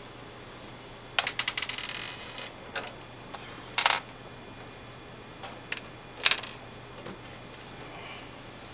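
Clicks and knocks from handling a plastic LCD monitor back cover and small tools while its screws are fitted. A quick run of rattling clicks comes about a second in, and single sharp clicks come near four and six seconds.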